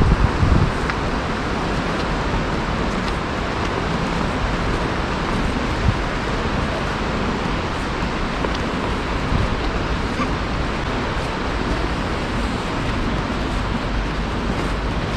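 City street ambience: a steady wash of road traffic noise, with a brief buffet of wind on the microphone right at the start.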